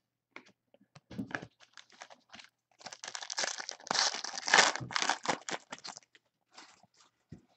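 Crinkling and tearing of a trading-card pack wrapper being opened, a run of short rustles that is sparse at first and thickest in the middle.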